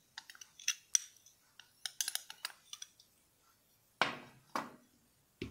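A spoon and glass dishes clink lightly a number of times. Then come two louder knocks about four seconds in, as a glass bowl is set down and moved on a glass tabletop.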